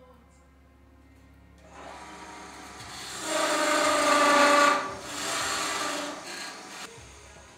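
Turning chisel cutting into a wooden walking-stick shaft spinning on a wood lathe: a hissing cut that builds up and is loudest about three to five seconds in. It breaks off briefly, then a second, shorter cut fades out near the end.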